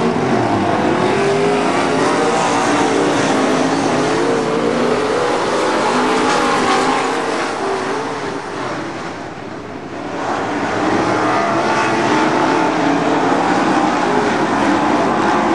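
Several USRA dirt-track Modified race cars' V8 engines running hard in a race, the engine pitch wavering up and down as the cars go through the turns. The sound fades for a moment a little past halfway, then builds back as the cars come round again.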